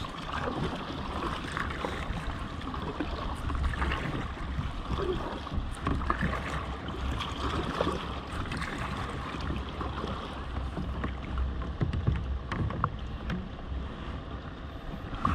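A fishing kayak being paddled on calm sea: water splashing from the paddle and lapping along the hull, with wind rumbling on the microphone.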